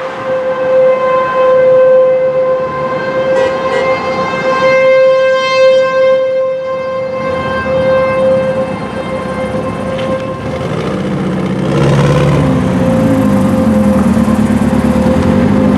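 Fulton T-128 outdoor tornado warning siren sounding a steady tone for a tornado warning, swelling and fading in loudness. About twelve seconds in, a lower engine drone from a passing vehicle joins it.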